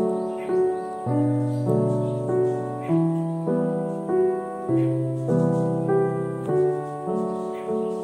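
Background music: an evenly paced melody of struck notes, each fading after it sounds, over a lower line that changes about every second.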